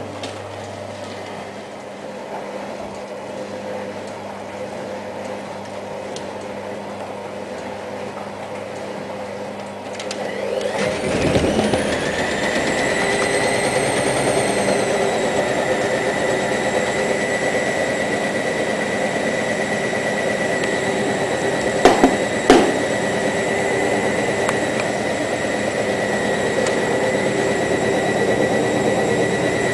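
Hoover ÖKOLOGIC WA1000 De Luxe washing machine running with a low hum. About ten seconds in its motor speeds up, with a rising whine that settles into a steady high whine. Two sharp knocks come in quick succession about two-thirds of the way through.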